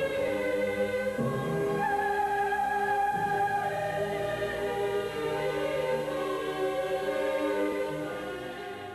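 Music with singing voices and long held notes. It fades out near the end.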